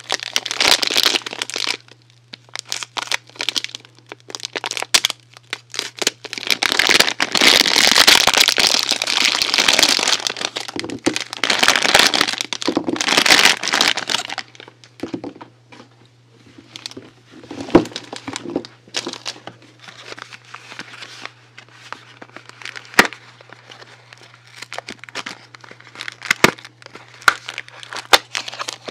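Soap packaging being crinkled and unwrapped in long bursts of crinkling. Then quieter handling with scattered clicks and several sharp cracks, over a steady low hum.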